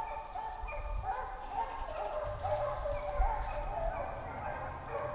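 A pack of hunting hounds baying on a running fox's trail, several voices calling and overlapping without a break.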